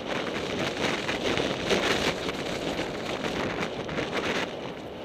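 Rushing, crackling hiss of riding fast down a snow run, mixed with wind buffeting the microphone; it eases off about four and a half seconds in.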